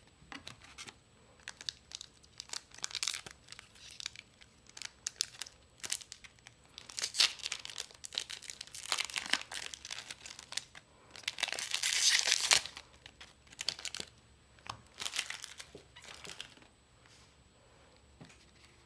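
Trading card booster pack wrapper crinkling and being torn open, with scattered rustles and clicks of handling; the longest, loudest tearing comes about two-thirds of the way through.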